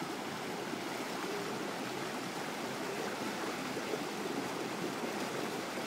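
Stream water rushing steadily down a rock chute, a natural water slide running low.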